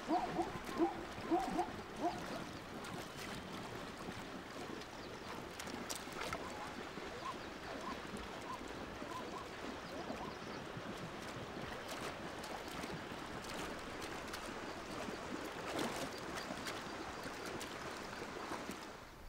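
Water splashing and sloshing as ostriches bathe in a shallow waterhole, with a steady wash of water and scattered small splashes.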